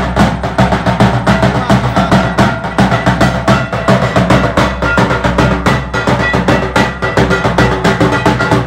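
Traditional barrel drums played fast and loud, sharp strokes several times a second in a steady driving rhythm, over a few sustained ringing tones.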